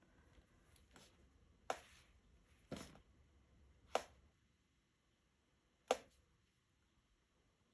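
Watercolour painting tools handled during painting: a few short, faint taps and scrapes, about five in all, the sharpest about four and six seconds in, with near quiet between.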